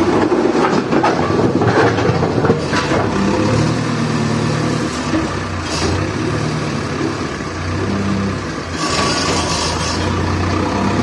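JCB backhoe loader's diesel engine running under load, its pitch rising and falling as the machine works. There is a rattling noise in the first few seconds and a brief rush of noise about nine seconds in.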